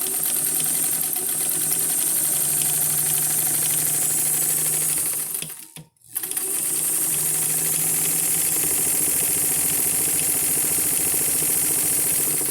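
Vintage Kenmore sewing machine running at speed and stitching, with a steady motor hum under a rapid, clickety-clankety clatter. It runs for about five and a half seconds, stops briefly, then starts again. The machine is very loud, and it sits on the table without a wooden base, which gives it an uneven rumble.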